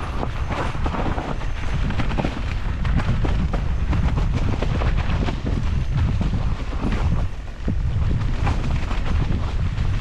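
Wind rumbling over the microphone while an electric mountain bike rides a rough trail, with frequent irregular knocks and rattles from the bike over bumps.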